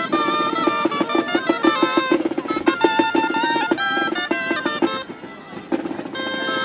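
Street band of gaitas, Navarrese double-reed wooden pipes, playing a lively melody over a drum beat. The music drops away briefly about five seconds in, then starts again.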